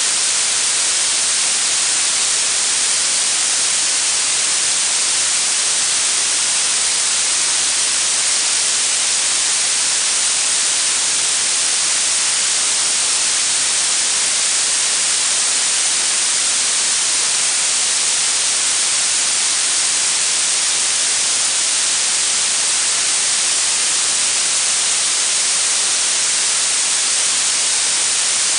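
Steady synthetic blue noise: an even, bright hiss whose energy is strongest in the highest pitches.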